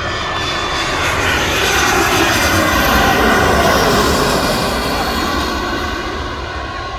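Jet engines of an Airbus A320-family airliner passing low. The noise grows louder to a peak about three seconds in, then fades, with its pitch falling as the plane goes by.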